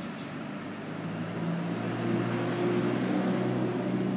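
Recycling truck's engine running, a steady low hum that gets louder about two seconds in.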